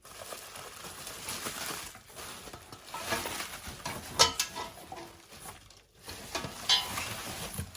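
Rustling and crinkling of packaging as items are taken out of a boiler accessory kit box, with scattered sharp clicks and knocks, the loudest about four seconds in.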